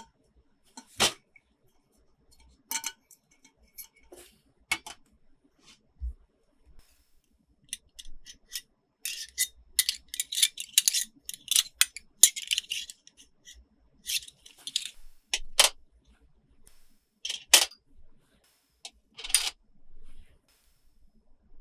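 Hands handling plastic toy pieces and packaging: scattered sharp clicks and taps, with several short bursts of rustling and crackling.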